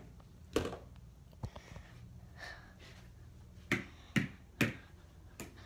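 Handling noise from a phone being carried across a carpeted room: a handful of short, sharp clicks and taps, three of them about half a second apart past the middle.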